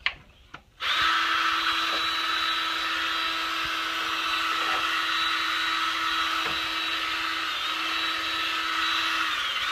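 Ryobi cordless drill spinning a magnetic black-sand separator attachment at a steady speed. It starts about a second in and spins down near the end.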